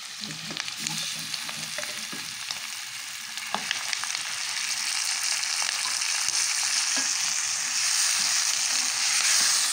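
Onions and freshly added chopped tomatoes frying in hot oil in a metal karahi. The sizzle grows louder over the second half, with a spoon stirring and knocking against the pan.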